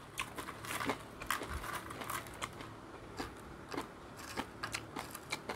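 Crunching and chewing of crispy dried anchovies (dilis): a quiet, irregular run of many small crackles and clicks.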